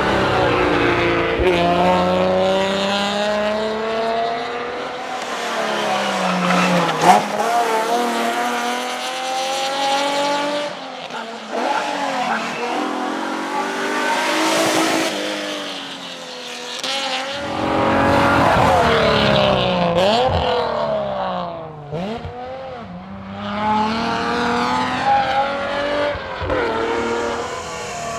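Alfa Romeo GTV6's V6 engine driven hard on a rally stage, the pitch climbing and dropping again and again as it accelerates, shifts gear and slows for corners. There is a single sharp bang about a quarter of the way in.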